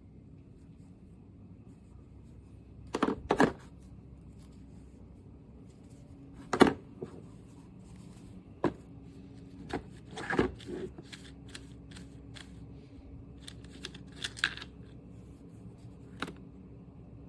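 Handling noise: scattered clicks and knocks of hard objects being picked up and set down, the sharpest about a third of the way in, over a faint steady hum.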